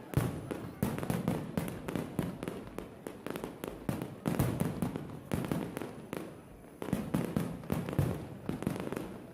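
Fireworks display: a rapid, unbroken run of shell bursts, booms and crackles, easing briefly about six seconds in before picking up again.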